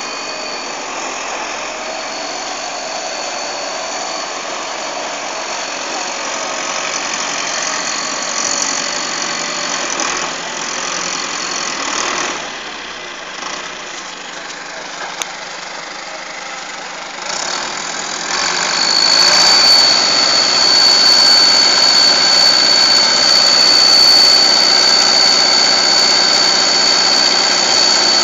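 Case International 995 tractor's turbocharged diesel engine running, with a high-pitched steady turbo whistle over it. About two-thirds of the way through, the engine picks up and the whistle turns much louder and stays up.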